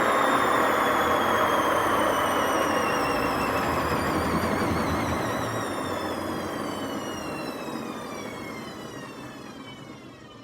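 Hotpoint WMA50 washing machine drum coasting down after a spin. A whine falls steadily in pitch over a rough, noisy running sound as the drum slows, and the whole sound fades away. The drum bearings are badly worn and noisy.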